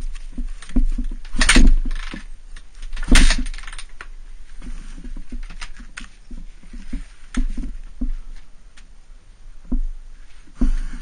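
Kick-starter strokes on a Honda CRF250R's single-cylinder four-stroke engine: two hard kicks about a second and a half apart, with smaller knocks and clatter around them, and the engine not catching. The uploader blames poor-quality 86-octane fuel for the no-start.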